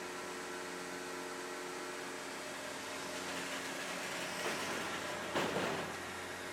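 Engine running steadily at an even speed, with a short louder rushing surge about five seconds in.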